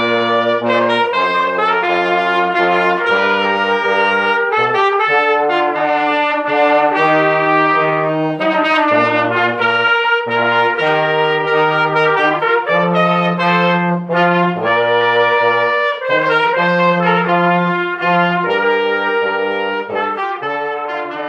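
A small brass band of trombones and trumpets, with a clarinet, playing a tune together, the trombones carrying a low bass line under the melody.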